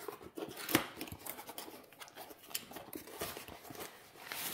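Cardboard box and packaging of a diamond-painting canvas being handled and opened: scattered taps and clicks with one sharp knock about a second in, then rustling near the end.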